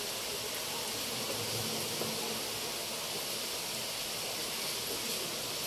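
Chaklis deep-frying in a kadhai of hot oil: a steady, even sizzle from the vigorously bubbling oil.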